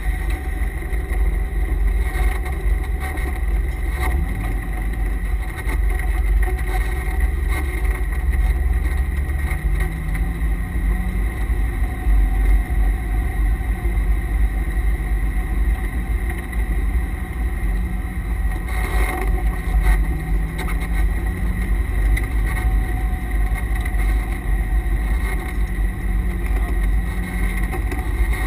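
C5 Corvette Z06's LS6 V8 heard from inside the cabin at low speed: a heavy low rumble, with the revs rising gently twice. A steady high whine runs over it, from the noisy transmission and differential coolers.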